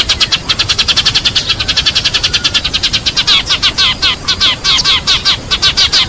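A flock of sparrows chirping in a dense, unbroken chatter of rapid, overlapping high chirps: the flock-gathering call used as a lure to draw sparrows in.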